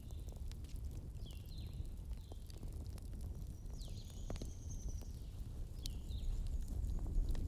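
Forest-bonfire ambience: a low crackling fire with a few sharp pops, and birds calling in short, falling chirps, with one longer, higher note about halfway through.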